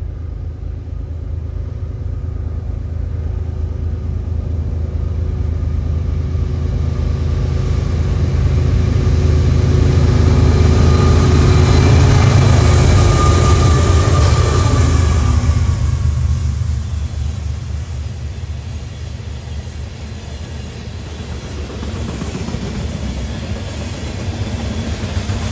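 Freight train passing, led by BNSF diesel locomotives. The engine drone builds to its loudest about ten to fourteen seconds in, and its pitch drops as the locomotives go by. Then comes the lower, steadier rumble of loaded tank cars rolling past on the rails.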